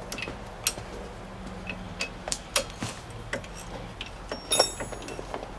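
Irregular sharp metallic clicks of a ratchet wrench and tools working the bolts of a minivan's new front wheel hub assembly, with a brief ringing clink about four and a half seconds in.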